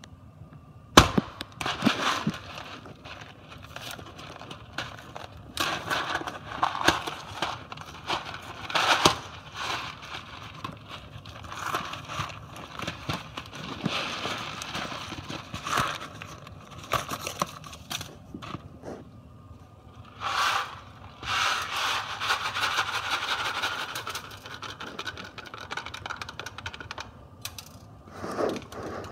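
Close handling noises of a cardboard macaroni-and-cheese box being gripped and worked open at a stove: a string of sharp clicks, knocks, scrapes and crackles, with a longer rustling stretch a little past two-thirds of the way through.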